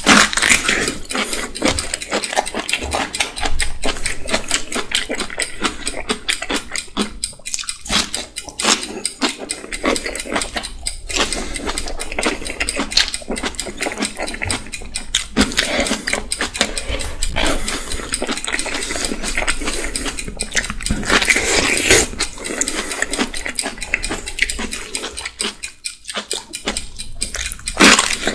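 Loud, close-miked eating of whole-leaf napa cabbage kimchi: wet chewing and crunching of big mouthfuls, a dense run of small clicks.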